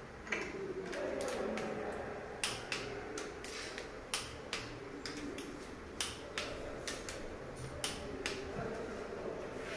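Sharp metallic clicks from a click-type torque wrench ratcheting and clicking as it tightens bolts on a Toyota 1GR-FE V6 block. There are about fifteen single clicks at uneven spacing, one or two a second.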